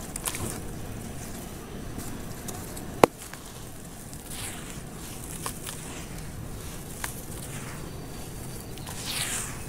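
Dry sand-cement and charcoal chunks being crushed and crumbled by hand in a plastic basin, grit and powder sifting down with scattered small clicks. There is one sharp click about three seconds in, and a louder rush of falling grit near the end.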